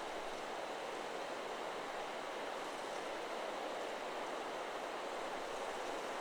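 Steady rushing of wind through forest trees, an even whoosh with no chime notes sounding.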